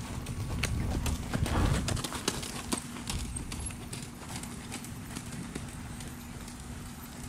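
Horse's hooves beating on the sand footing of an arena as it moves along the rail. A low rumble swells to its loudest about a second and a half in, then eases.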